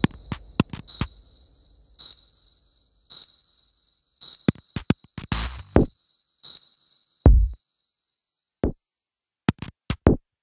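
Sparse, minimal electronic music: a soft high tick about once a second that fades out partway through, scattered sharp clicks, and a few short deep thumps.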